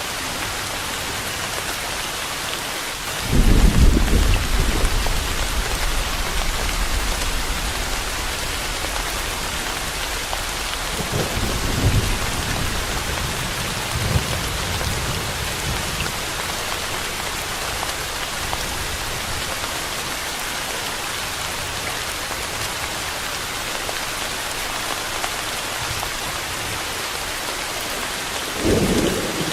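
Steady rain with rolls of thunder: a loud low rumble a few seconds in that fades away over several seconds, two fainter rumbles around the middle, and another short one near the end.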